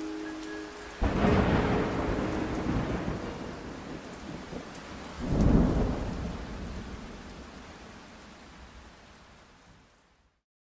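Thunderstorm: thunder rolls in suddenly about a second in over steady rain, and a second roll follows about five seconds in. The storm then fades slowly away to silence near the end.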